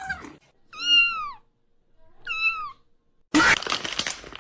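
A cat meowing: the end of one meow, then two distinct meows, each rising and then falling in pitch. About three seconds in, a sudden loud noisy sound starts.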